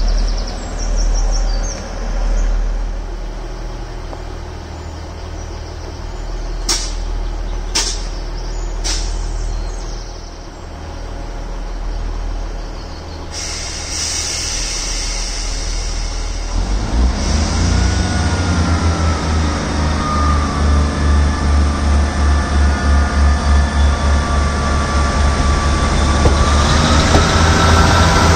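ScotRail Class 158 diesel multiple unit 158709 idling at the platform, then pulling away under power and passing close, its diesel engines throbbing in a steady rhythm that grows louder, with a whine over it. Three sharp clicks come about a third of the way in, and a hiss of air starts shortly before the train moves off.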